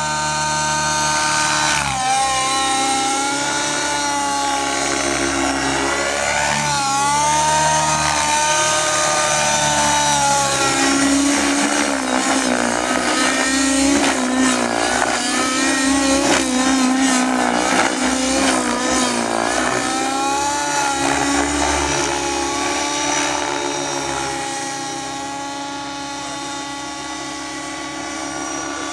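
Align T-Rex 700 nitro RC helicopter flying aerobatics: its glow engine and rotor whine, the pitch bending up and down again and again as it manoeuvres, a little fainter near the end as it climbs away.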